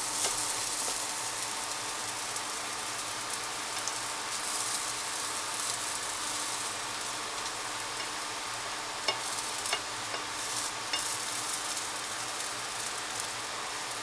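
Pancake sizzling in a nonstick frying pan, a steady hiss, with a few light clicks about nine to eleven seconds in.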